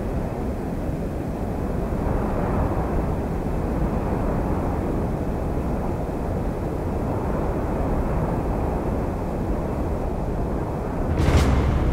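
A steady low rumble of noise, then a sudden deep boom hit near the end.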